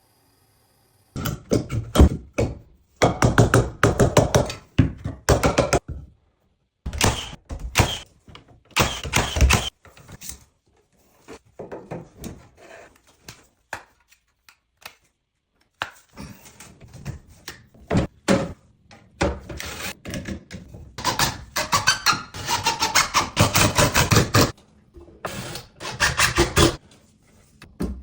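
Renovation work noises in a small bathroom: a run of knocks, thunks and scraping in short bursts that start and stop abruptly, with brief pauses between them.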